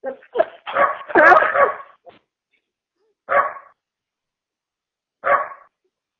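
A dog barking over a phone line: a quick run of barks in the first two seconds, then a single bark twice more, a couple of seconds apart.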